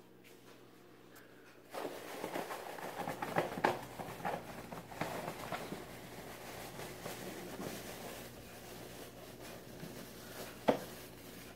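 Cat at play: rustling and scuffling starting a couple of seconds in, with scattered sharp taps, the loudest one near the end.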